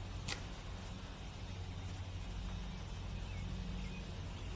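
A single sharp crack of an air-rifle shot about a third of a second in, over a steady low rumble, with a few faint high chirps near the end.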